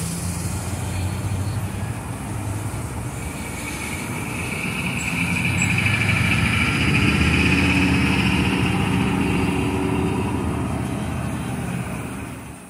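Road traffic with a heavy vehicle's engine running, swelling to its loudest about two-thirds of the way through and then fading.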